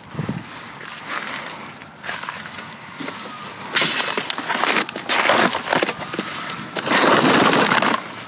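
Rummaging through discarded toys in a dumpster: rustling and clattering, loudest in two longer stretches from about four seconds in and again near the end.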